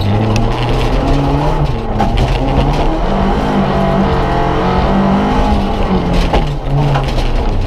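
Rally car engine running hard, heard from inside the stripped cabin, its revs climbing and dropping in steps with gear changes, with gravel clicking and rattling against the car.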